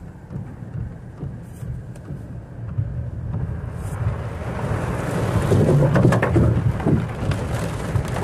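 Heavy rain and gusting wind beating on a car, heard from inside it, over a steady low rumble. The rush of rain and wind swells about four seconds in and is loudest near the end.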